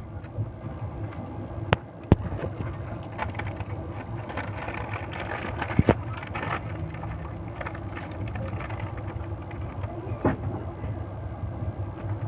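Passenger train running, a steady low rumble with a few sharp clacks and knocks, one near the start, one about six seconds in and one near the end.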